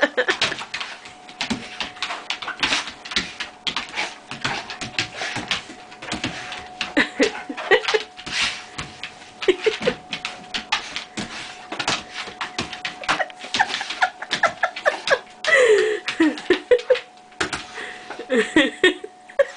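Golden retriever playing with a plush toy: a dense, irregular run of rustling, clicking and soft knocks as it mouths and shakes the toy on carpet. A few short vocal sounds that rise and fall break in, and a faint steady tone runs underneath.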